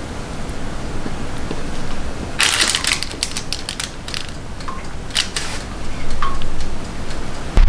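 A cluster of quick clicks and clatters over a steady hiss, in three bunches about two and a half, four and five seconds in, a couple of them leaving a short ring.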